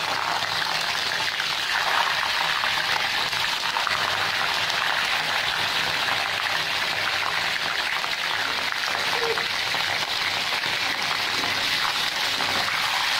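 Raw chicken pieces frying in hot oil in a kadhai: a dense, steady sizzling hiss that starts suddenly as the chicken goes into the oil.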